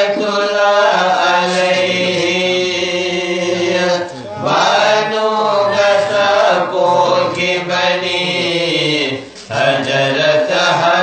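Men singing a Manipuri marifat, a Sufi devotional song, together in long drawn-out, wavering melodic lines. They break off briefly for breath about four seconds in and again about nine seconds in.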